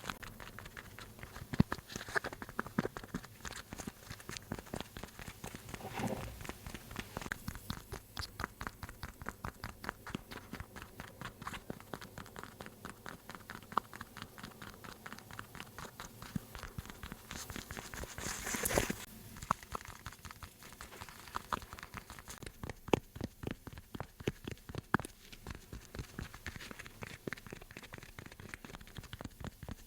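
ASMR tapping close to the microphone: quick runs of light taps and scratches on objects, several a second, with a brief louder rustle about two-thirds of the way through.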